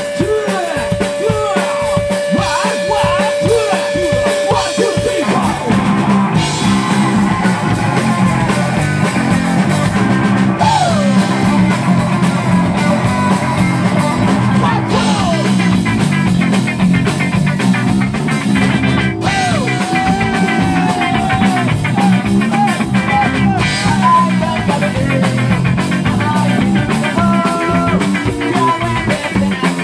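Live rock band playing loud on electric guitar, bass guitar and drum kit. For about the first five seconds a single held note rings over the drums, then the full band thickens the sound.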